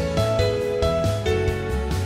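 Background instrumental music: plucked guitar-like notes over a steady bass line.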